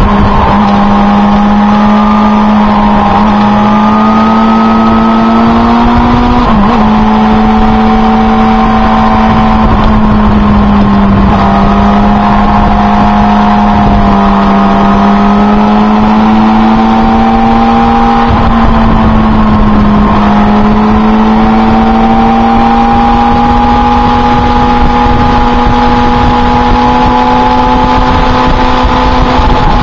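Motorcycle engine running steadily at road speed, its pitch rising and falling gently as the speed changes, with brief dips about six and eleven seconds in, over constant wind and road noise.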